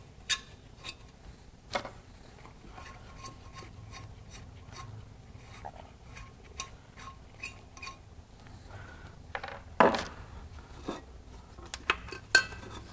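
A wrench clicking and metal clinking as the last bolts holding a Holset HX35 turbocharger to a Cummins diesel's exhaust manifold are undone. There are scattered sharp clicks, a louder knock about ten seconds in, and more clinks near the end as the turbo is worked free.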